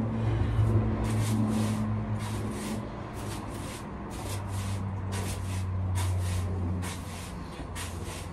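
Broom sweeping a floor in quick, hissing strokes, about two a second, over a steady low hum.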